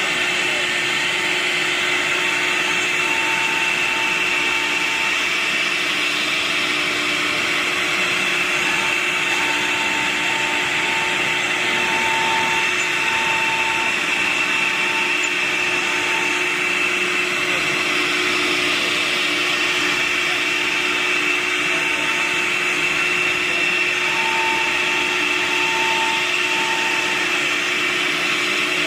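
Nesting CNC router running, a steady mechanical noise with a constant high whine and a mid-pitched whine that comes and goes.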